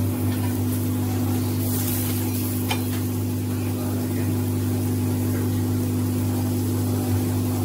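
Oiled aloo paratha frying on a hot cast-iron tawa, a steady sizzle with a tick or two, over a constant low hum.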